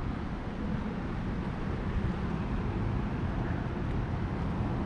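Steady, low rumbling outdoor background noise, with no distinct events.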